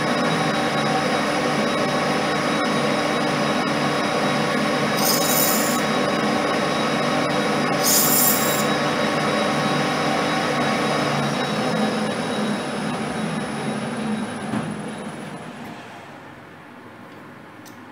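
Colchester lathe running steadily, with two brief high-pitched scrapes about five and eight seconds in; the motor is then switched off and the spindle winds down to a stop near the end.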